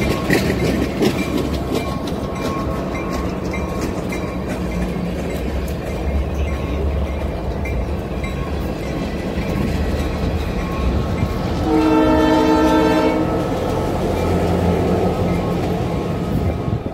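Freight train of covered hoppers and tank cars rolling past close by: a steady rumble with wheels clicking over the rail joints. About twelve seconds in, a locomotive horn sounds once for about a second and a half.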